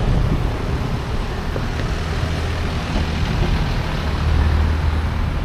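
Road traffic passing: a steady wash of car tyre and engine noise with a low engine hum that swells about four seconds in as a vehicle goes by close.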